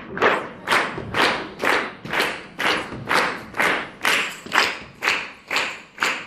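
Hand claps in unison keeping a steady beat, about two claps a second, each with a short echo.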